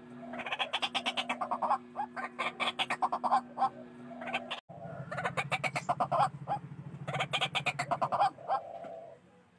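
White-breasted waterhen calling: fast runs of harsh, repeated notes in bursts one after another, with a sudden short break about four and a half seconds in.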